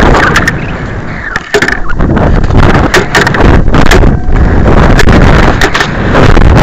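Loud wind buffeting and rumble on the microphone of a camera riding on a model rocket, with frequent sharp knocks and crackles.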